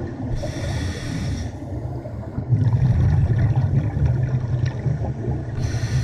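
Scuba diver breathing through a regulator underwater: a hiss of inhalation lasting about a second shortly after the start, then a burst of exhaled bubbles, and a second inhalation hiss near the end.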